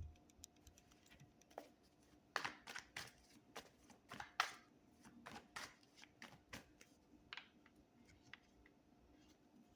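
Tarot cards being handled and shuffled: faint, irregular clicks and short rustles, thickest through the middle and thinning out near the end.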